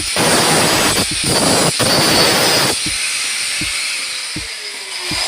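Angle grinder cutting into a steel cable tray, giving a loud, steady hiss. The cut stops about two and a half seconds in, and the disc then winds down with a slowly falling whine.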